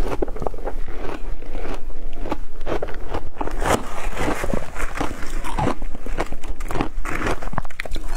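Close-up crunching and chewing of matcha-dusted ice: a dense, continuous run of crackles and crisp crunches. About halfway through, a metal spoon digs into the ice in a glass bowl.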